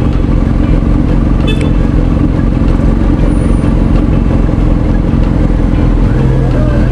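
Kawasaki Z900's inline-four engine idling steadily at a standstill, heard close up from the bike itself. A second, lower steady engine note joins about six seconds in.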